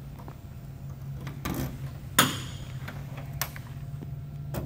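1955 Chevrolet Bel Air trunk latch releasing with one sharp metallic clack about two seconds in, followed by a few lighter clicks as the trunk lid is lifted on its hinges.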